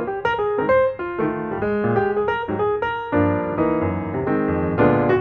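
Background music on piano or electric piano: a quick run of notes over chords that thicken and deepen about three seconds in.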